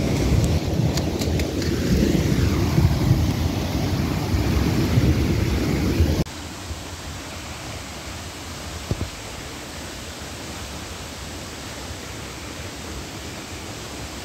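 Storm noise: rain with a loud low rumble, which cuts off abruptly about six seconds in. After that comes the steady rushing hiss of a flooded creek's water.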